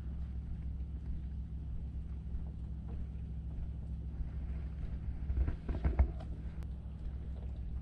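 Steady low hum of a motor running, with a short cluster of knocks about five and a half to six seconds in, the last one the loudest.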